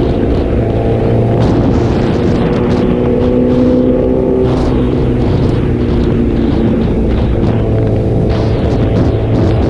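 Honda CBR1000RR's 999 cc inline-four running through an SC-Project aftermarket exhaust while riding at cruising speed. Its steady note breaks up about halfway through and settles again near the end.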